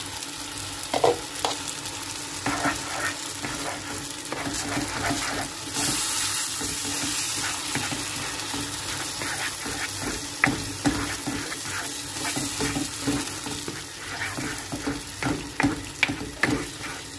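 Menemen of eggs, tomatoes and peppers sizzling in a frying pan while a spatula stirs and scrapes through it, with frequent light clicks against the pan. The sizzle grows louder for a couple of seconds about six seconds in.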